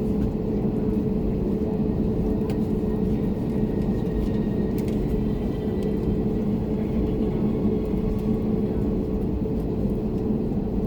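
Steady cabin noise inside an Airbus A321neo on the ground before takeoff: an even rumble with a constant hum through it.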